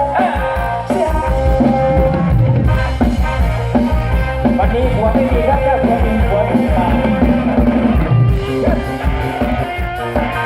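Mor lam band music: a drum-kit beat under a wavering melody line, with singing among it.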